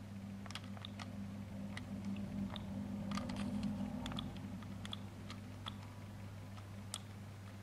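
Irregular quiet clicks from a Siemens C60 mobile phone's keypad buttons being pressed, over a steady low electrical hum.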